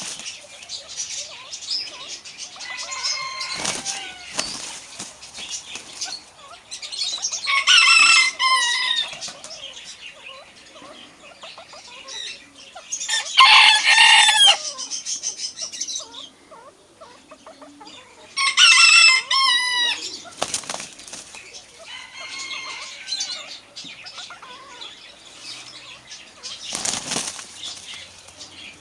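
Rooster crowing three times, each crow a long call of a second and a half or more, with quieter clucking calls and wings flapping in between.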